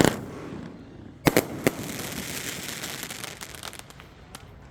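Fireworks going off: a sharp bang, then about a second later three more quick reports, followed by a high hiss that fades away over about two seconds.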